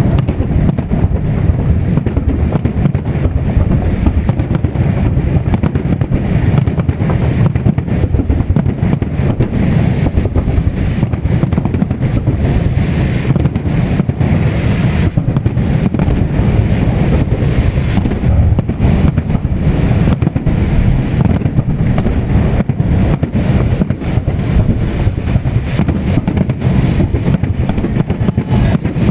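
Festive fireworks salute: a dense run of bangs and crackles over heavy wind rumble on the microphone.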